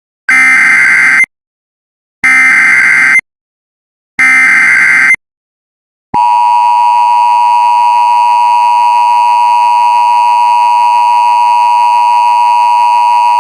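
Emergency Alert System broadcast tones: three one-second bursts of the SAME header's warbling data tones, then, about six seconds in, the steady two-tone EAS attention signal, which keeps sounding.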